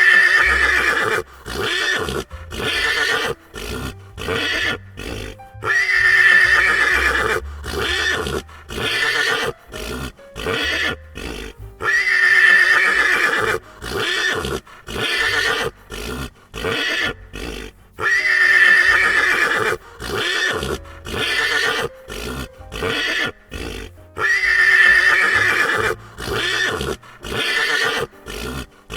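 Horse neighing over and over: a long loud whinny about every six seconds, with shorter calls in between, in a repeating loop.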